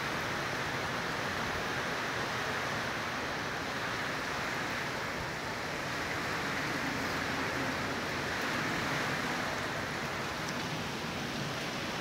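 Strong storm winds blowing steadily with a continuous hiss of wind and rain, swelling and easing gently.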